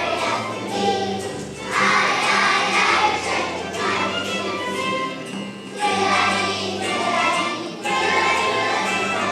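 Kindergarten choir singing a song in unison over instrumental accompaniment, in phrases with short breaths between them.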